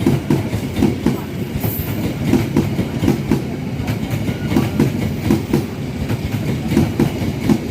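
A train passing close by, its wheels clacking steadily over the rail joints.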